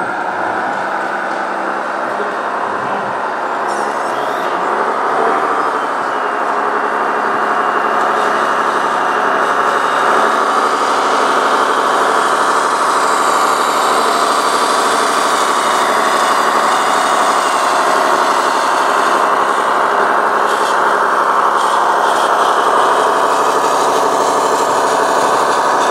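Radio-controlled model MAN tipper truck running, a steady diesel-like engine drone that grows louder over the first ten seconds as the truck comes close, then holds steady.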